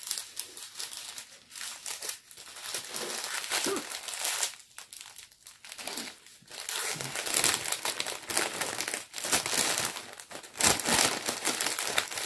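Crinkling and rustling of a diamond painting kit's plastic packaging being handled, in irregular bursts that grow louder about halfway through.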